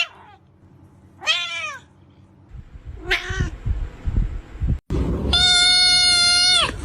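A cat meowing twice, short calls that rise and fall in pitch. After a cut, a long, steady, drawn-out high call.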